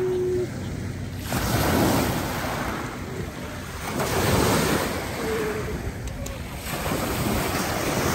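Wind rushing over the microphone, swelling and dropping in surges every couple of seconds.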